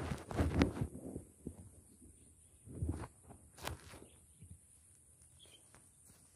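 Rustling and soft thuds of someone moving close by in the first second and again near three seconds, then quieter, over a steady high hiss; a couple of faint chirps after five seconds.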